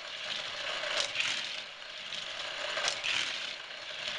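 A battery-powered Hot Wheels track booster whirs while coupled Hot Wheels Rapid Transit train cars lap a plastic oval track, rattling along it. About every two seconds there is a sharp smack as the train is flung through the booster's spinning wheels.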